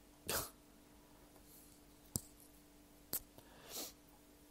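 A quiet pause at the microphone with a faint steady hum: two short breaths, one just after the start and one near the end, and two sharp clicks in between, about a second apart.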